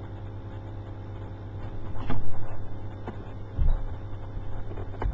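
A steady low electrical hum with a few faint clicks. There is a louder stretch a little after two seconds in and a couple of low thumps about three and a half seconds in.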